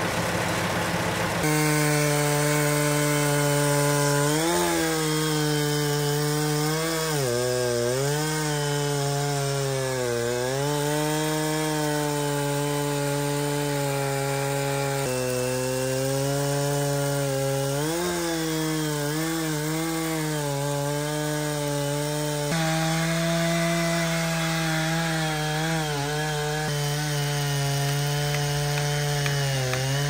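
Chainsaw running at full throttle, cutting through a waterlogged sinker cypress log. Its pitch sags several times as the chain bogs in the cut, then climbs back.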